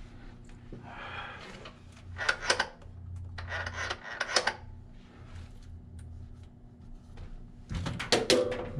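Tools and parts being handled: several short bursts of clatter and scraping over a steady low hum.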